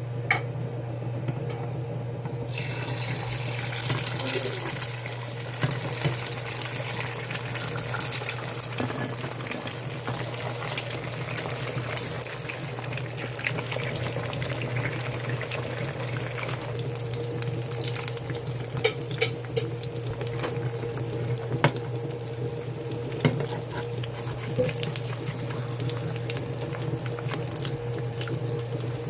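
Eggs frying in hot oil in a pan: a dense sizzle that starts suddenly about two and a half seconds in and carries on with scattered sharp pops and crackles. A steady low hum runs underneath.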